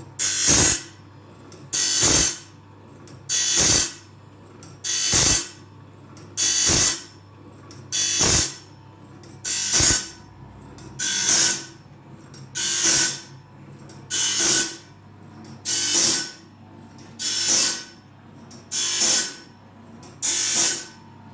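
Sawmill band-blade sharpener running: its grinding wheel grinds one tooth of the 22 mm pitch band blade about every one and a half seconds, a short burst each time over the steady hum of the motor, as the feed steps the blade on tooth by tooth.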